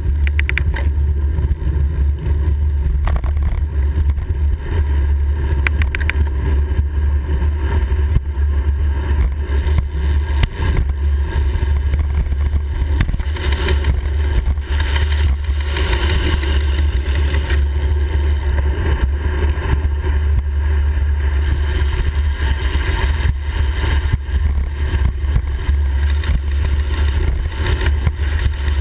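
Wind buffeting the microphone of a handlebar-mounted camera on a bicycle descending a hill, a loud steady low rumble with tyre and road noise under it. A few sharp clicks come near the start and about six seconds in.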